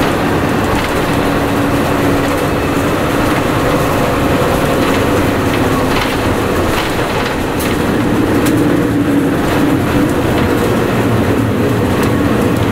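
Ride inside a 1998 Mitsubishi Fuso Aero Midi MK (KC-MK219JVF) city bus under way: a steady diesel engine drone and road rumble, with scattered light rattles from the body. The engine note swells a little about eight seconds in, then eases again.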